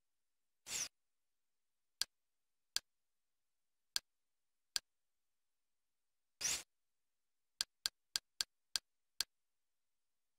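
Kodi Confluence menu navigation sounds. Single sharp clicks mark each cursor step between menu items: four spaced about a second apart, then a quicker run of six near the end. A brief swish sounds twice, once shortly after the start and once a little past the middle, as menus open or close.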